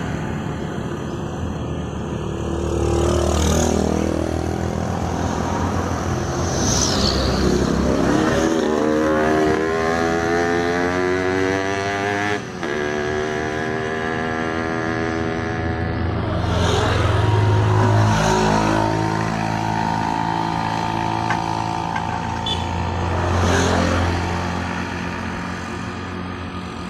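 Motorcycles passing close by one after another, each engine swelling and dropping in pitch as it goes past, with a steady engine drone between passes.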